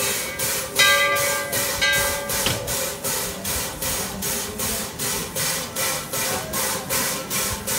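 Standing ten-wheeler steam locomotive panting in a steady rhythm of hissing pulses, about three a second, the sound of its steam-driven air pump working. A few short ringing tones come in during the first two seconds.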